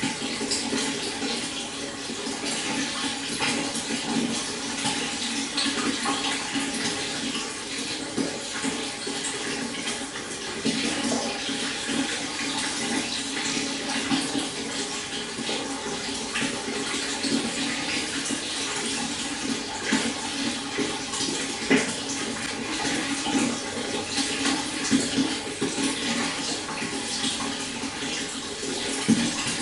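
Shallow stream flowing and burbling steadily, with small splashes and gurgles over stones.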